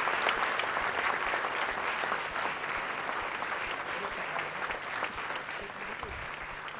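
Theatre audience applauding, the clapping slowly dying away.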